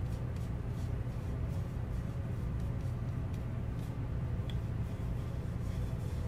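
Steady low rumble of background noise, with a few faint, soft ticks scattered through it.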